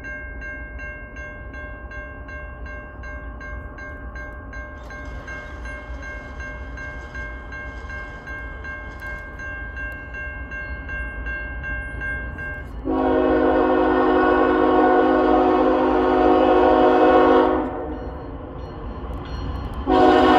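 A bell ringing steadily over the low rumble of an approaching freight train, then the lead locomotive's air horn sounds one long blast of about five seconds, and a second blast begins near the end.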